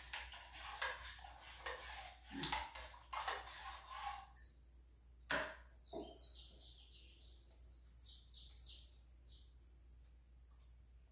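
A spoon scrapes repeatedly against a metal saucepan and a condensed-milk can as the milk is poured in and worked. Then, from about four seconds in, a small bird chirps over and over in short high notes, with two sharp knocks in between.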